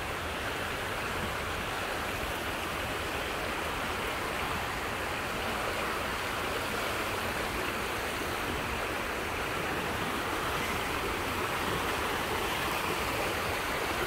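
Mountain stream rushing over rocks: a steady rush of water that grows slightly louder near the end.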